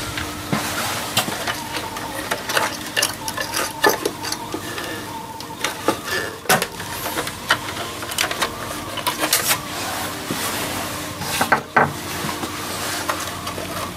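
Irregular clicks, knocks and scraping from gloved hands working on the wire connectors and heating-element terminals inside the control compartment of a Thermex IF 50 V electric water heater.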